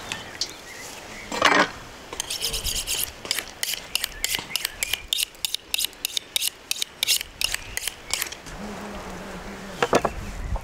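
A kitchen knife drawn in quick alternating strokes along a honing steel: a run of short metallic scrapes at about four a second, starting about two seconds in and stopping near the end. A single knock comes first, about a second and a half in.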